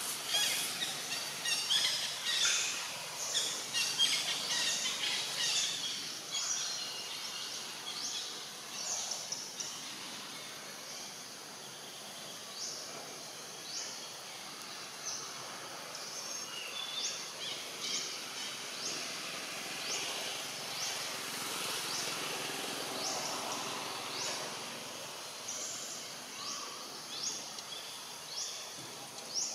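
Birds chirping in the trees: many short, high calls over a steady background hiss, most frequent and loudest in the first several seconds, then more spaced out.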